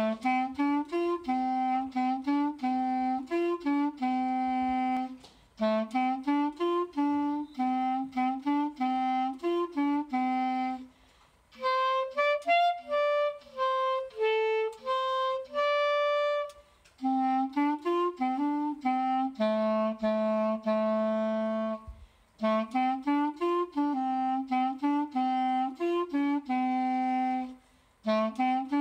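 Solo clarinet playing a Chinese folk song melody in phrases of about five seconds, with short breath gaps between them. About twelve seconds in, one phrase climbs into the clarinet's high register before the tune drops back low.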